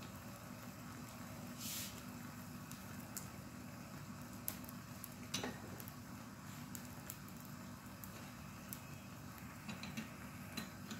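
Egg and butter sizzling faintly in a frying pan on low heat, with scattered small crackles and pops. There is a brief hiss about two seconds in and a soft tap about halfway through.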